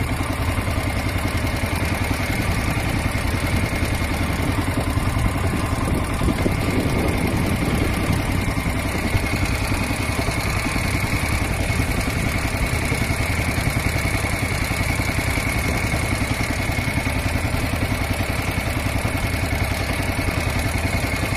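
Boat engine running steadily, heard from on board, with a steady high whine over the rumble.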